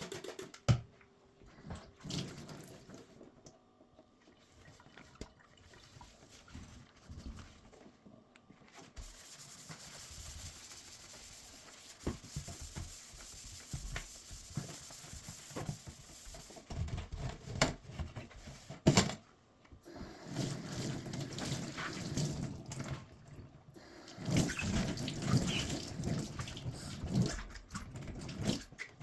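Water running from a kitchen tap into a sink for several seconds, with knocks and clatter of things being handled at the sink.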